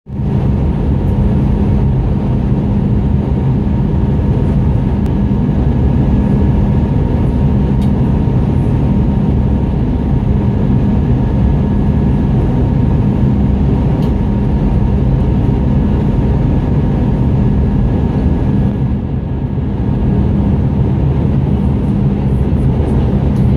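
Cabin noise beside the wing of an Airbus A320-211 on approach: the steady drone of its CFM56 turbofan engines mixed with rushing airflow, with a constant hum. It dips briefly about nineteen seconds in.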